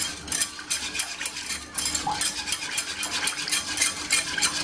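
Wire whisk beaten quickly around a small metal saucepan of thin orange-juice, cornstarch and sugar mixture, ticking against the pan about four times a second.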